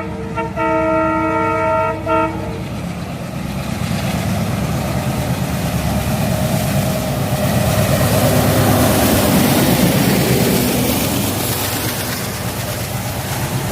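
Horn of a WDM3D ALCo diesel locomotive sounding a chord, broken briefly just after the start and stopping about two seconds in. Then the locomotive's ALCo 251 V16 diesel engine chugging as the train goes by, growing louder toward the middle.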